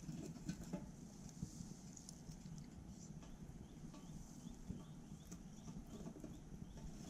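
Wood fire crackling in a small titanium wood stove: scattered sharp pops and snaps over a low, steady rumble.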